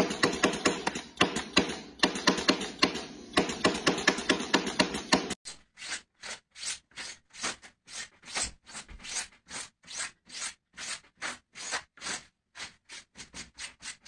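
Dense rapid clicking of a nail gun driving nails into a wall for about five seconds. Then regular swishing strokes, about three a second and quickening near the end, as gloved hands rub and scrape down feathers out of a nylon down jacket.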